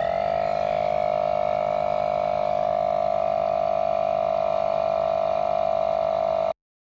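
Ridgid 18V cordless high-pressure tire inflator running to pump up a tire aired down to 15 PSI: a loud, steady whine over a fast mechanical chatter. It rises a little in pitch as it starts and cuts off suddenly near the end.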